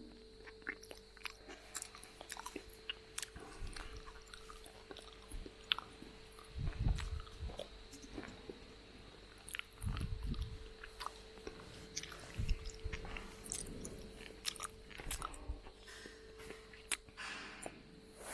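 A person chewing and eating close to the microphone, with scattered clicks and a few heavier thuds.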